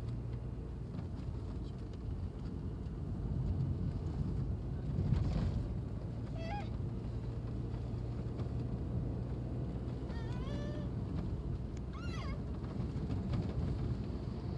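A steady low engine and traffic drone, swelling briefly about four to five seconds in, with three short high-pitched cries that bend in pitch about halfway through and near the end.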